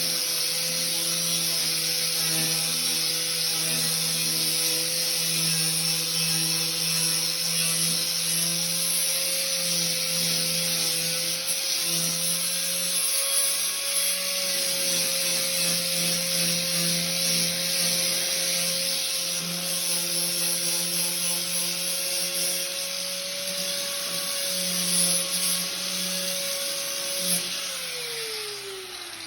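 Handheld electric power tool running steadily, with an abrasive rubbing noise of paint being stripped from metal. Near the end it is switched off and its pitch falls as it spins down.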